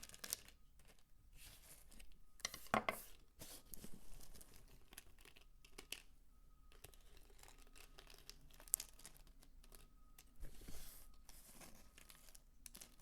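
Dry soap peelings crumbled and crunched by hand, making irregular crackling and crinkling, loudest about three seconds in.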